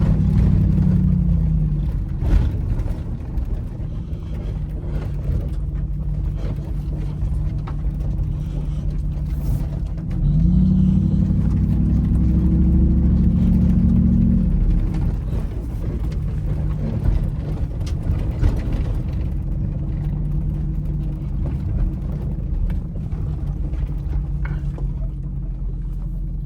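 Third-generation Dodge Ram's Hemi V8 running at low speed on a dirt trail, heard from inside the cab. The engine pulls harder twice, briefly near the start and for about four seconds from ten seconds in, its pitch rising and then settling back. A few knocks come through between the pulls.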